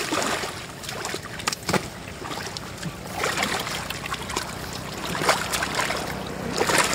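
Shallow muddy floodwater splashing and sloshing as catfish thrash in it and hands grab at them, with several sharp splashes.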